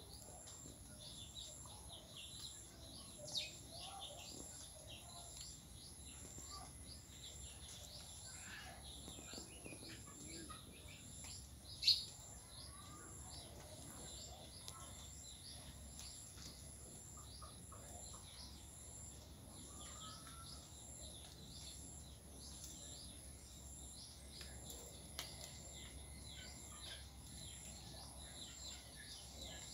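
Faint outdoor ambience: birds chirping in many short high calls over a steady, high-pitched insect trill, with one louder chirp about twelve seconds in.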